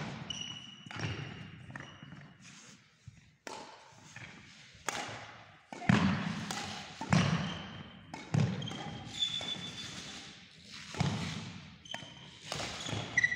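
Badminton rally: sharp racket strikes on the shuttlecock roughly every one to one and a half seconds, with shoe squeaks and footfalls on the hall floor between them, echoing.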